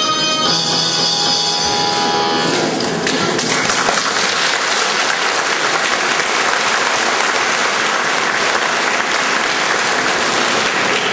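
Music ends on a held final chord, and about three seconds in an audience breaks into steady applause that carries on to the end.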